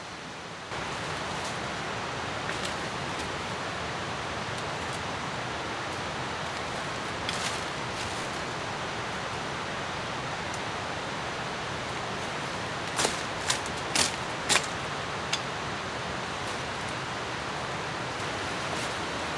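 Steady hiss of rushing water, which gets louder under a second in. About two-thirds through come five quick, sharp knocks from a machete chopping at undergrowth.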